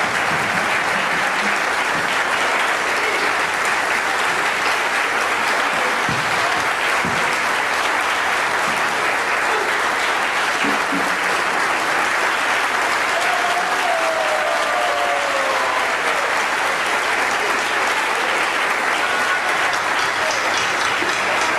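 Audience applauding steadily, a long, unbroken round of clapping, with a voice or two calling out through it.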